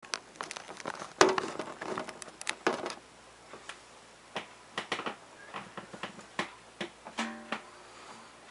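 Acoustic guitar played in sparse, irregular plucked notes, busier in the first few seconds and thinning out toward the end.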